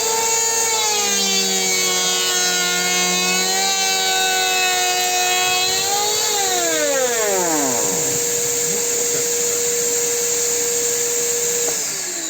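Makita electric planer motor running at speed with a high, many-toned whine. After about six seconds one whine falls in pitch as it winds down, while a steady hum carries on and then also winds down near the end.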